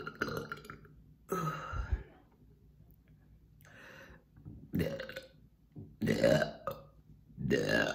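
A woman burping repeatedly, about five deep burps roughly a second apart, the loudest near the end, as she brings up trapped air.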